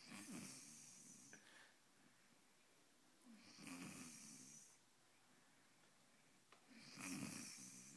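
A sleeping person snoring: three snores about three and a half seconds apart, each a low breath with a hiss on top.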